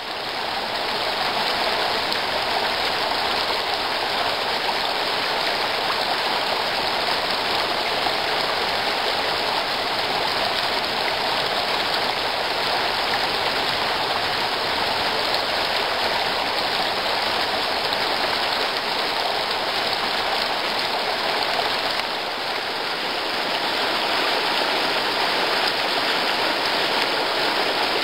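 A rocky woodland stream flowing steadily over stones, a constant rush of water.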